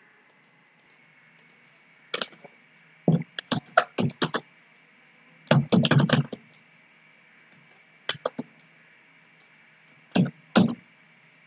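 Computer keyboard typing: short clusters of keystrokes with pauses between them.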